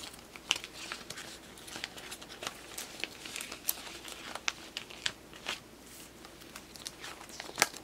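Clear plastic card sleeves and binder pocket pages crinkling and rustling as photocards are slid into the pockets, with scattered light clicks and taps and a sharper click near the end.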